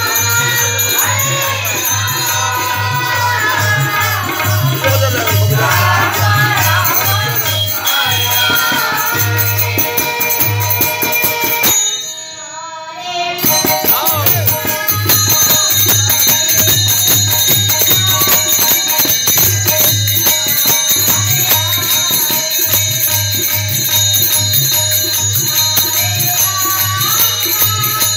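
Devotional folk music: a boy singing through a PA, with harmonium, a hand drum keeping a steady beat and jingling percussion. The music breaks off briefly about twelve seconds in, then harmonium, drum and jingles carry on.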